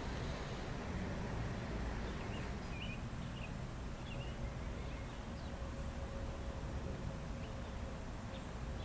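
Outdoor ambience: a steady low rumble with a few short, faint chirps about two to four seconds in, and a faint steady hum coming in about halfway through.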